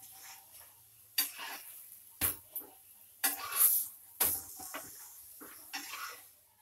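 Steel spatula knocking and scraping against a griddle pan as a paratha is lifted and flipped: about four sharp clacks roughly a second apart, with scraping in between.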